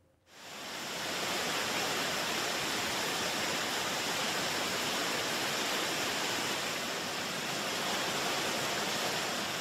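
Mikaeri Falls, a waterfall with a drop of about 100 m, rushing in a steady, dense roar of falling water that fades in over the first second.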